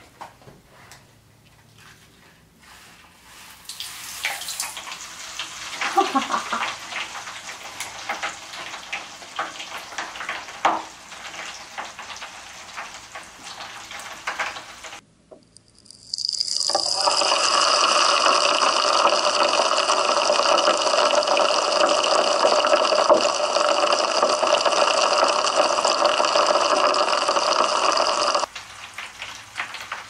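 Mr. Bubble Magic Bath Crackles, popping-candy-style granules, poured into bath water and dissolving with scattered crackles and pops. Partway through, the sound becomes a loud, steady, dense fizzing heard through an underwater camera, which cuts back to separate crackles near the end. The speaker calls the crackles really loud.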